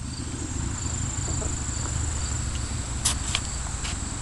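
Steady high-pitched chorus of insects such as crickets, over a low rumble, with a few sharp clicks about three seconds in.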